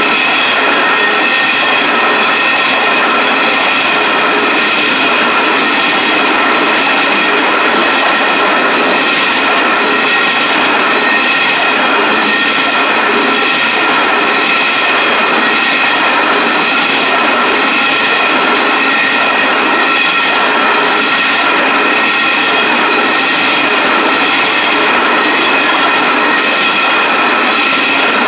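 Narrow-gauge coal train wagons rolling steadily past close by: a continuous rumble of wheels on rail with a steady high-pitched whine over it.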